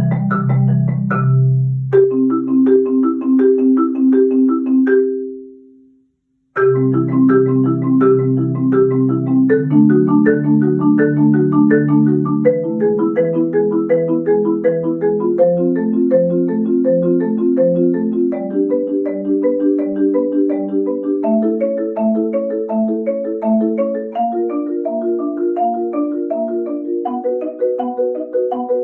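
Marimba played with mallets in fast, even two-handed broken-chord patterns. The playing dies away about five seconds in, stops for a moment, then starts again, the repeated chord shapes moving step by step higher in pitch.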